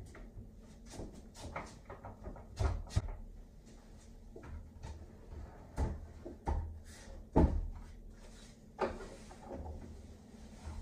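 Irregular knocks and clunks of solid wood doors and their hardware being handled, about half a dozen of them standing out, the loudest about three seconds in and again at about seven and a half seconds.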